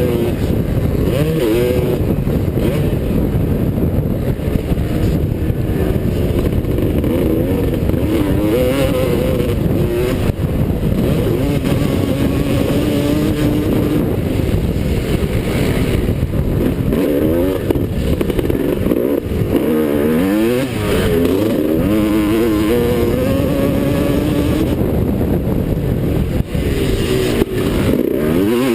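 Suzuki RM250 two-stroke dirt bike engine revving hard on a motocross track. Its pitch climbs and falls again and again as the rider works the throttle and gears.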